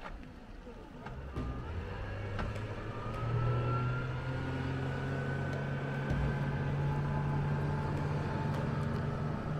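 Motorboat engine speeding up as the boat pulls away. It is a steady low drone that grows louder about three seconds in, with a faint whine slowly rising in pitch.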